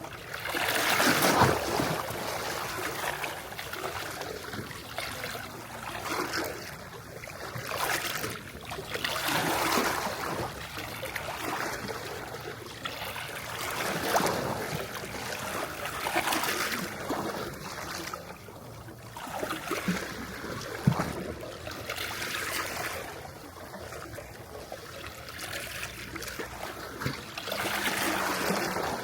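Small sea waves washing onto the shore, each swelling and falling back, one every two to four seconds.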